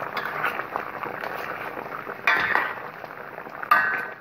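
Pumpkin pieces boiling in sugar syrup in a pot, a steady bubbling. A spoon clinks against the pot twice, about two seconds in and near the end.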